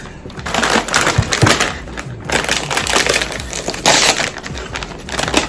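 Plastic snack-chip bag crinkling and crackling as it is handled and torn open, with a sharp loud rip about four seconds in.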